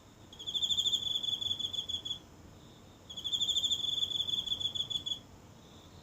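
A single insect singing high-pitched, rapidly pulsed trills: two phrases about two seconds long each, a second apart, with a fainter trill in the gap.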